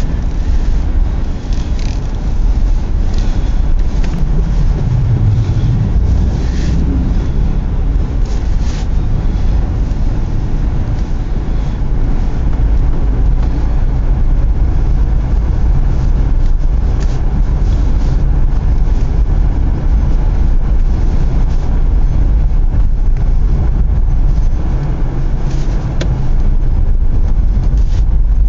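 Vehicle driving, a loud steady low rumble of engine and road noise, with a few faint light ticks.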